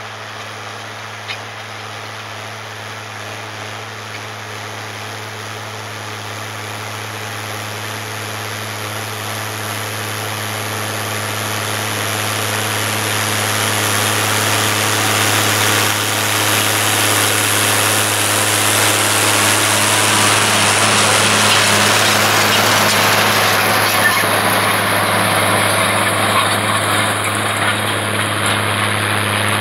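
International Harvester 956 XL tractor's six-cylinder diesel engine running steadily while pulling a stubble cultivator through the soil. It grows steadily louder as the tractor approaches, is loudest about two-thirds of the way in, then eases slightly.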